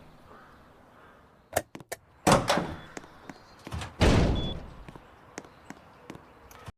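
A few sharp clicks, then two heavy bangs about two seconds apart, each ringing on for a moment; the second is deeper.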